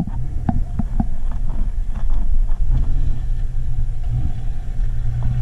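Lifted Ram pickup truck driving up a sand dune, its engine running under load with a steady low rumble and a few short ticks on top.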